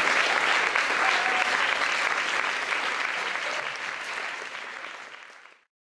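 Audience applauding, the clapping growing gradually quieter and fading out to silence near the end.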